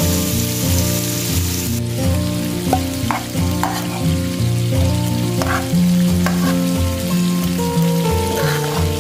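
Okra, tomato and onion sizzling in a frying pan while a metal spoon stirs them, with a few short scrapes of the spoon against the pan. Instrumental background music with a melody and bass line is louder than the frying.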